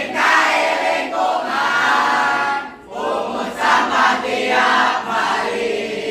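A group of school students chanting and singing a yel-yel cheer together, loud shouted phrases in unison, with a brief break about three seconds in.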